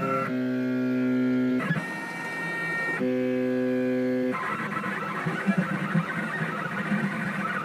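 Stepper motors of a homemade CNC pen plotter running: steady whining tones that switch pitch abruptly a few times during straight moves, then an uneven, fluttering whine from about four seconds in as the pen traces curves.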